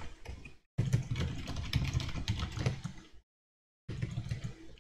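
Computer keyboard typing, faint scattered key clicks over a steady low hum. The sound drops to dead silence twice, briefly near the start and for about half a second a little past three seconds in.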